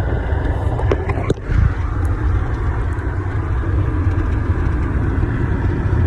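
Steady low vehicle rumble, with a couple of faint clicks about a second in.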